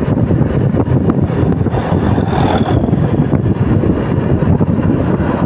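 Wind rushing over the microphone on a moving motorcycle, with the motorcycle's engine and road noise running steadily underneath.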